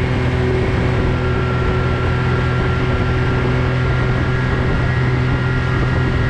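Side-by-side UTV engine running at a steady cruising speed with a constant hum, over a steady rush of wind and tyre noise from the ride.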